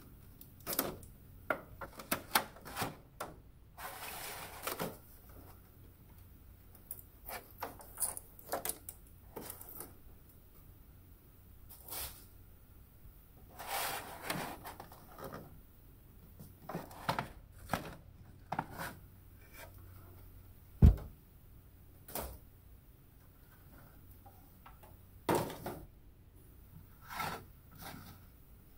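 Stiff clear plastic toy packaging being cut and pulled open by hand: irregular crinkles, clicks and taps, with two longer stretches of rustling, one a few seconds in and one near the middle. A single loud thump comes about two thirds of the way through.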